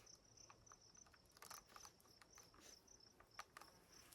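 Faint, high-pitched cricket chirping in a quick, even pulse of a few chirps a second, with scattered faint clicks and taps from gear being handled, the sharpest about a second and a half and three and a half seconds in.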